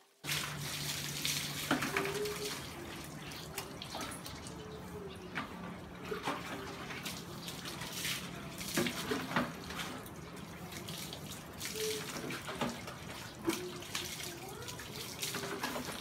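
Water being scooped with a plastic dipper and poured over a wet dog, splashing onto a tiled floor, over a steady rush of water running from a hose into a bucket. Scattered sharp splashes and knocks of the dipper against the bucket come through the rushing.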